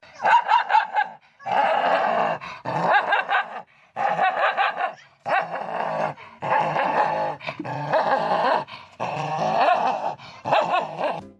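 A dog vocalising in a series of drawn-out, wavering sounds, each about a second long, with short pauses between them.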